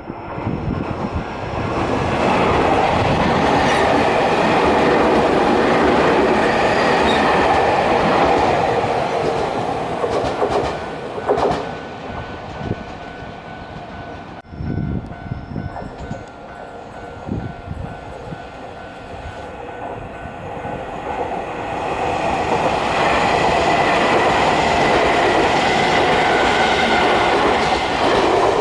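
Keio Inokashira Line electric commuter trains passing over a level crossing, with wheels clacking on the rails. There is a loud pass over the first ten seconds or so, a quieter lull, and a second loud pass over roughly the last six seconds.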